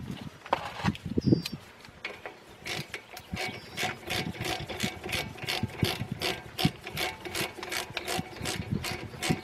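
Ratchet wrench clicking in a quick, regular run, about three clicks a second, as it is worked back and forth on a brake caliper bolt; a few knocks of handling the caliper come before the clicking starts, about two seconds in.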